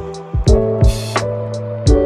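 Background music: a beat with regular drum hits over a sustained bass line and guitar chords.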